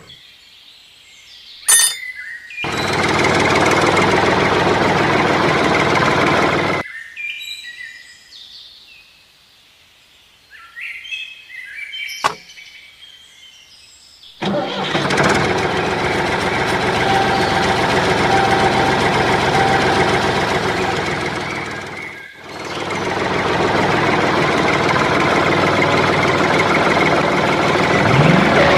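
A small motor running steadily in three long stretches, each starting abruptly, the last winding up again right after a brief stop. In the quieter gap between, birds chirp and there are a couple of sharp clicks.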